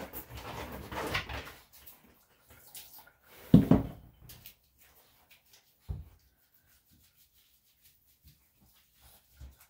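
Wet rubbing and light splashing as a Yorkshire Terrier puppy is shampooed by hand in a bathtub, with one loud knock about three and a half seconds in and a smaller one a couple of seconds later.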